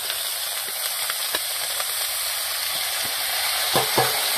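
Cleaned snail meat tipped off a steel plate into a hot kadhai of onions in mustard oil, sizzling steadily. A few clicks and, near the end, louder knocks and scrapes as a steel slotted spoon pushes the meat off the plate.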